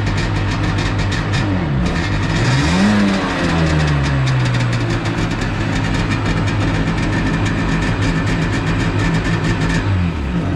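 Sea-Doo jet ski's two-stroke Rotax 787 twin running out of the water. It idles, is revved once about two seconds in, rising and falling back, then holds a slightly higher idle and begins to drop off near the end.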